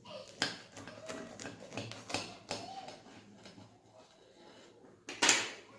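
A harcha (semolina griddle bread) being cut or broken into pieces on a plate: a run of light taps, clicks and crackles, with one louder rustling burst near the end.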